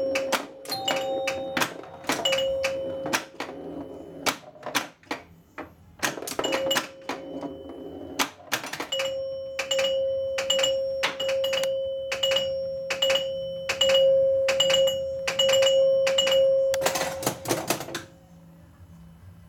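Gottlieb Sinbad pinball machine in play: sharp clicks and knocks of its solenoids, bumpers and flippers, with its bell chimes ringing now and then. About halfway through the chimes ring in a steady run of about two strikes a second, ending with a burst of loud clicks, after which the machine goes much quieter.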